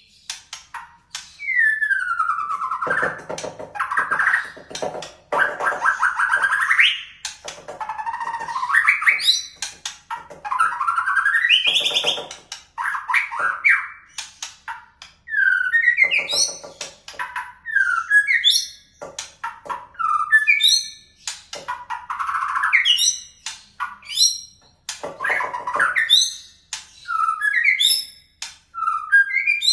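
White-rumped shama singing a long, varied song of clear whistles, sweeping and curved notes, buzzy phrases and quick rising trills, phrase after phrase with short pauses, its repertoire filled with canary-like phrases.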